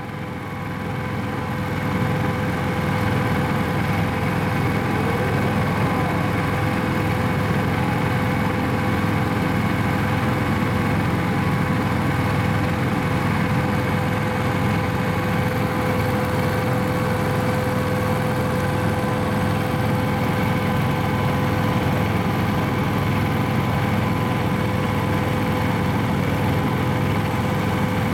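JR Central 383 series electric train's onboard equipment running: a steady hum with a constant whine, building over the first couple of seconds and then holding level.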